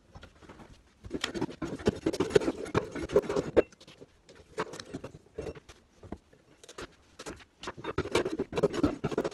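Scraping and scratching from hand work on a bare wooden floor, with carpet underlay being pulled up. It comes in two busy spells of rapid scratchy clicks, one about a second in and one near the end, with scattered clicks between.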